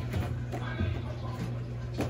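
Consul CWS12 12 kg washing machine running its jeans wash: a steady low hum with irregular knocks.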